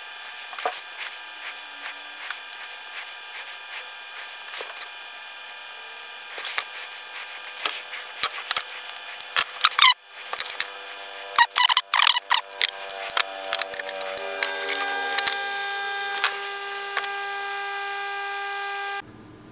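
Small clicks, taps and rustles of hands working a stranded mains wire and a small screw-on banana plug, with hand tools picked up and put down. A steady hum of several tones comes in for the last few seconds.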